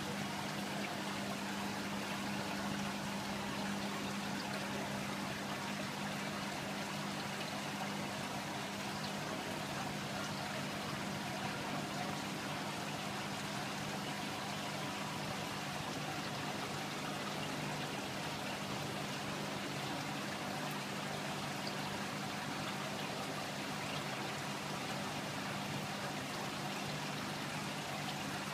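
Marine aquarium's water circulation running: a steady wash of moving water with a low, steady hum from the pump.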